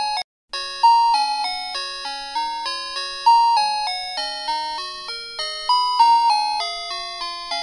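Background music: a bright, chiming melody of sharply struck notes that each fade quickly, about three notes a second. It cuts out for a moment just after the start.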